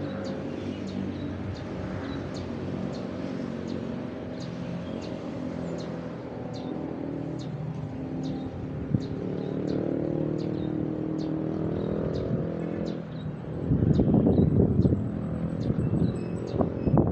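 Motor traffic running on a road, its engine hum rising and falling, while a bird gives short high chirps about twice a second. About two-thirds of the way in, a louder rough rumble takes over.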